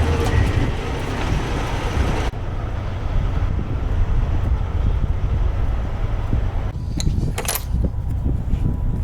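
Semi truck's diesel engine running with a steady low rumble, heard from inside the cab. A hiss cuts off sharply about two seconds in, and a few clicks come near the end.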